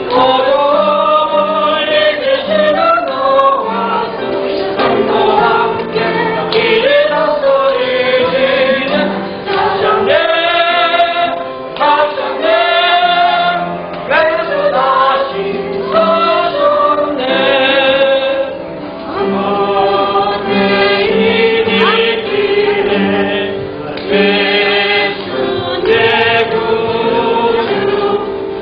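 A congregation or choir singing a hymn together, with men's and women's voices in long held phrases.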